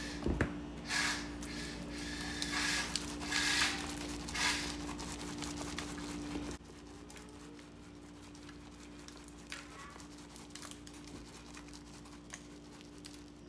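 Steak spice being shaken from a hand-held shaker over raw steaks: several short rattling, pattering bursts in the first half, then only faint ticks over a low steady hum.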